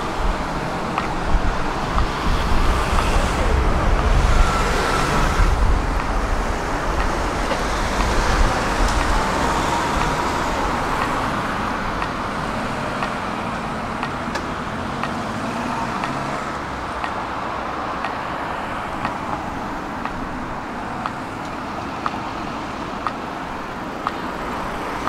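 City tram running along street track: a steady rumble of wheels on rails and running gear, louder in the first few seconds, with faint ticks and a faint whine that comes and goes near the middle.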